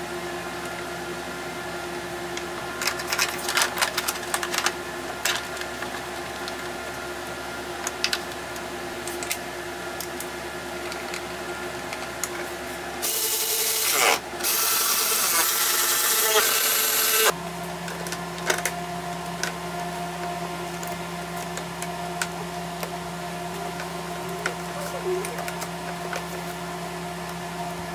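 A ratchet wrench driving a fastener in a loud run of about four seconds halfway through, with a short break about a second in. Before it come scattered clicks and knocks of plastic parts being handled, over a steady hum.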